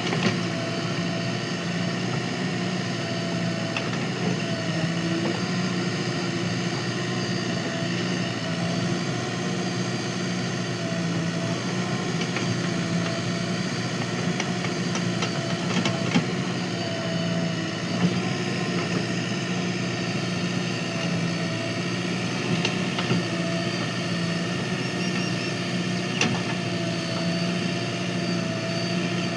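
Diesel engine of a JCB 3DX backhoe loader running at a steady, even speed while it digs soil, with a few short, sharp knocks now and then.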